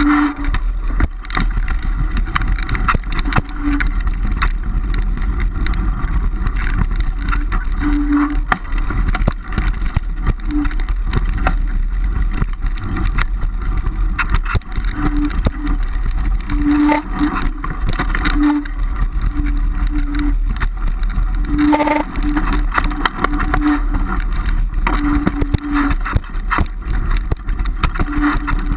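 Wind buffeting the microphone and a bicycle rattling and knocking as it rides over a rough dirt trail, a steady rumble full of small jolts. A short low hum comes and goes over it.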